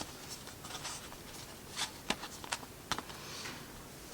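Quiet handling sounds: a few light taps and soft rustles, with several sharp little clicks about two to three seconds in.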